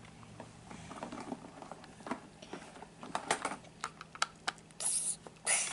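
Light, scattered clicks and clatter of the plastic parts of a CAT Machine Maker construction kit being handled and fitted together, with a plastic toy screwdriver working a plastic screw. There are two short rustles near the end.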